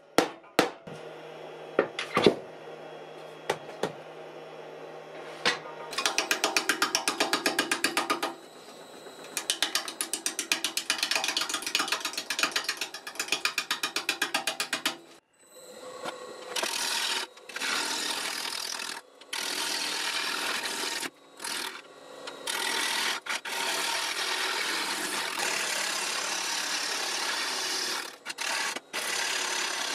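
A couple of sharp mallet knocks, then a wood lathe spinning a rough spalted wood blank while a bowl gouge takes roughing cuts: at first a rapid, even knocking as the gouge catches the out-of-round edge on each turn, later a steadier shearing of wood broken by short pauses as the blank comes round.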